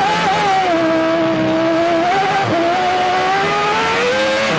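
Onboard sound of a 1995 Benetton Formula 1 car's 3.0-litre Renault V10, running at high revs and holding a fairly steady note. The note dips briefly about halfway through, then climbs slowly toward the end.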